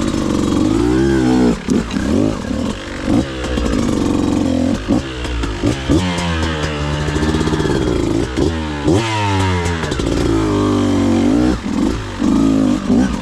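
Beta 200RR two-stroke single-cylinder enduro bike engine revving up and down in repeated short bursts of throttle, with scattered knocks and clatter.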